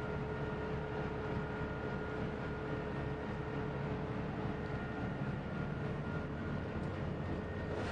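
Steady engine drone with a low rumble and a couple of constant humming tones: the catamaran's inboard diesel engines idling, heard from inside the hull.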